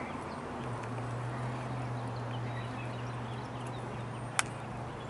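Shimano Calcutta Conquest BFS HG baitcasting reel being wound in, giving a low steady hum for about three and a half seconds, with a single sharp click near the end.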